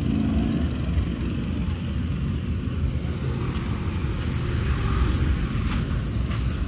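Street traffic: a steady low rumble of vehicles running past, with a thin high whine from about three and a half to five seconds in.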